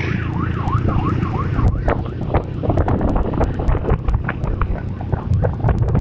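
Motorcycle engines running in a touring convoy, a loud rough rumble with wind buffeting the microphone. For about the first two seconds a siren yelps rapidly over it.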